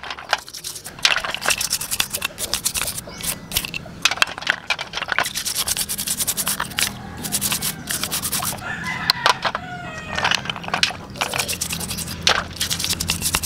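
A plastic toothbrush scrubs algae off live spiny sea snail shells in a basin of water, in rapid, repeated scraping strokes. A rooster crows once in the background about nine seconds in.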